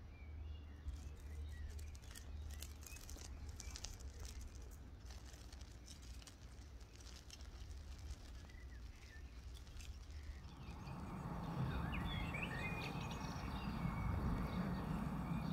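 Masking tape being peeled off a freshly painted road line on asphalt: a run of small crackling clicks, with birds chirping. From about ten seconds in a louder, steady rustle takes over.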